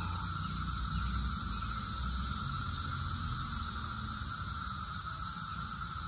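Massed chorus of Brood X 17-year periodic cicadas singing: a steady, unbroken drone with no single caller standing out.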